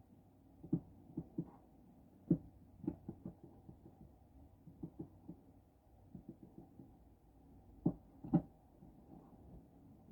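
Tree branches knocking and tapping on a frosted skylight in the wind: irregular light knocks, muffled, with the loudest about two seconds in and a pair near the end.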